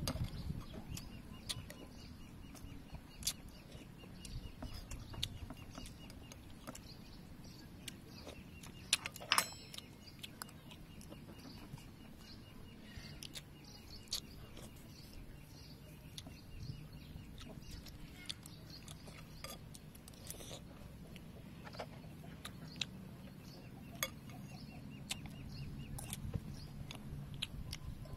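Eating at a table: scattered light clicks of metal spoons against a ceramic soup bowl, with one sharper clink about nine seconds in, and soft chewing. Faint bird chirping in the background.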